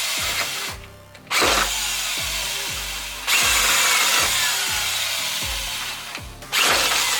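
Power drill running in long bursts, stopping briefly about a second in and restarting near three and six and a half seconds, over background music with a steady beat about twice a second.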